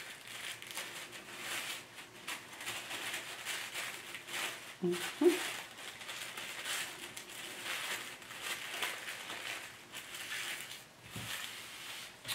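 Paper rustling and crinkling as a paper pattern piece is handled and folded on a table, with many small irregular crackles. A brief murmur of voice comes about five seconds in.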